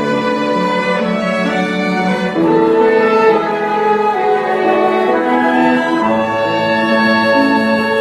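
A small mixed chamber ensemble of violins, cello, clarinets and flutes playing an arrangement of a film theme in long held notes, swelling louder about two and a half seconds in.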